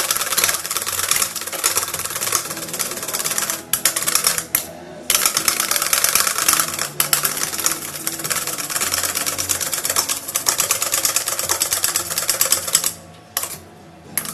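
Wire balloon whisk beating a whole egg to a froth in a stainless steel bowl by hand: a fast, steady clatter of the wires against the bowl. It pauses briefly twice about four seconds in and stops near the end.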